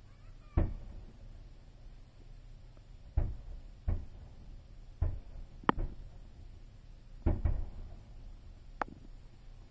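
Distant aerial fireworks bursting: about eight booms at irregular intervals, some in quick pairs, each dying away briefly.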